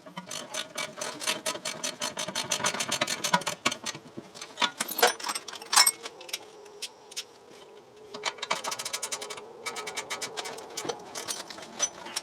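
Ratchet wrench clicking rapidly in two long runs, with a couple of single sharp clicks between them, over a faint steady whine.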